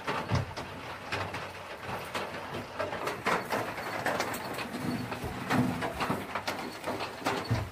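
Chickens making low clucking, cooing calls, with scattered knocks and scrapes on the wooden nest boxes as they are handled.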